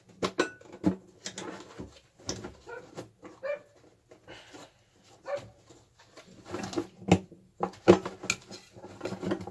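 Dogs barking on and off in the background, mixed with short clicks and knocks of hands handling and prying at the plastic fresh air box housing of a VW Type 3.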